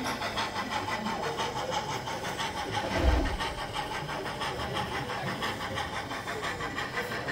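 Model steam locomotive's sound decoder chuffing in a quick, even rhythm as it hauls its freight train, with a single low thump about three seconds in.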